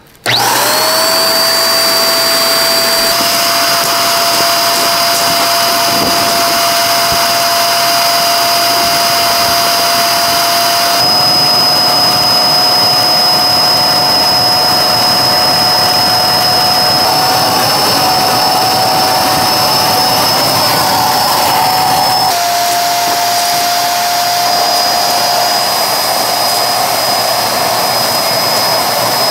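Electric air pump switching on abruptly and running steadily as it inflates an air tent's beams through a hose. It gives a brief rising whine as it spins up, then holds a steady high whine over rushing air, its pitch stepping slightly a few times.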